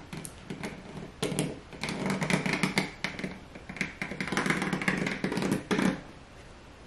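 A pen scratching and rubbing along a sole-protector sheet as it traces around a sneaker's sole, in a run of quick scratchy strokes that stops about a second before the end.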